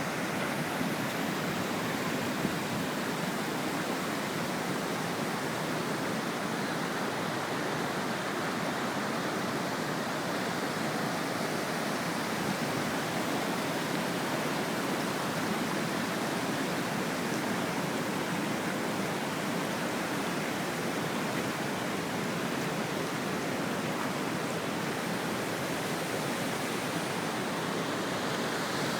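Floodwater rushing in a steady, unbroken roar.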